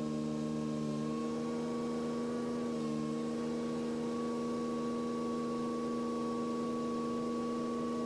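Steady hum of several sustained tones sounding together, shifting slightly in pitch about a second in and again near three seconds in.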